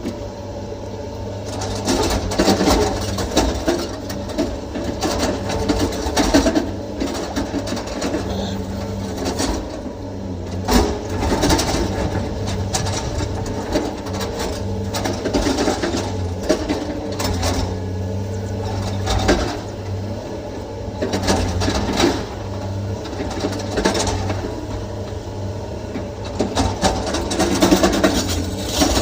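SANY excavator's diesel engine running steadily, with repeated knocks and clatter of rock and stone as it loads a dump truck.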